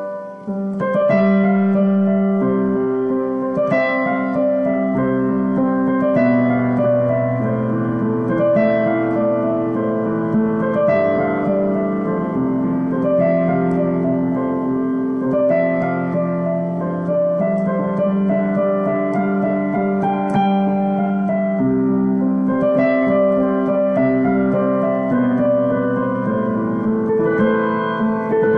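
Solo piano playing slow, sustained chords in a steady, repeating pattern, a new chord struck about every two seconds, recorded on a mobile phone.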